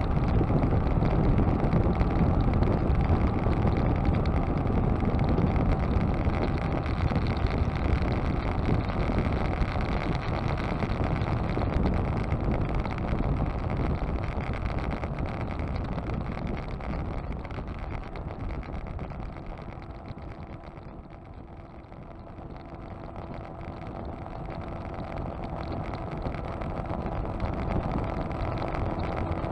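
Motorcycle riding on a highway, heard from a bike-mounted camera: a steady rush of wind and engine noise. It grows quieter to its lowest point about two-thirds of the way through, then builds again, with a steady engine hum coming through near the end.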